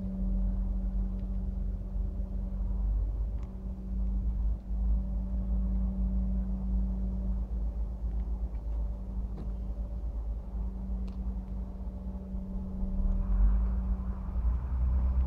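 Heavy truck diesel engine idling: a steady low rumble with a constant hum, swelling slightly near the end.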